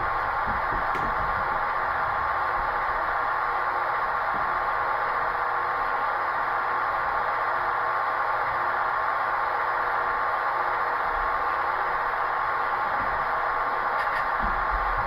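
Model passenger train with sound-decoder-equipped locomotives running on the layout: a steady, even running noise that holds unchanged.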